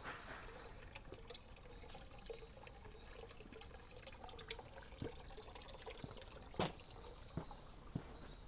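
Water trickling at a temple ladle basin, a low steady splash. Footsteps on stone steps come in from about five seconds in.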